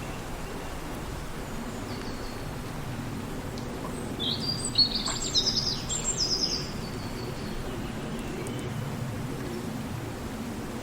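Wind through a forest, a steady low rumble, with songbirds chirping and trilling high above it, mostly about four to seven seconds in.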